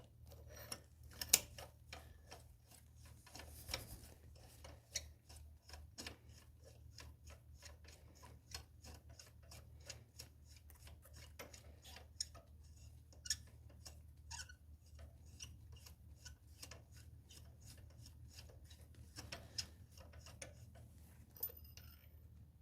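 Ratchet wrench clicking steadily, about three clicks a second, with a few louder knocks, as a spark plug is unscrewed. A low steady hum runs underneath.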